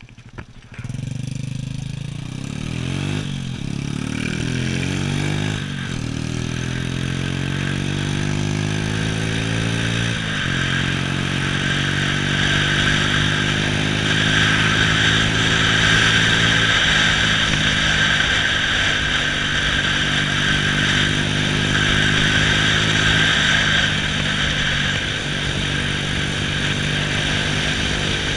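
Honda Astrea underbone motorcycle's small single-cylinder four-stroke engine pulling away and revving up through the gears, with three upshifts in the first ten seconds. It then runs at a steady cruise with rising wind noise.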